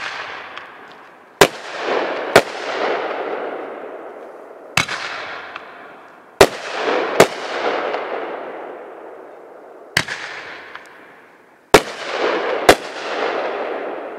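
Three shots from a 500-gram fireworks cake. Each starts with a launch thump, followed about a second and a half later by two loud breaks roughly a second apart, then a fizzing glitter tail that fades over a few seconds. The first launch comes right at the start.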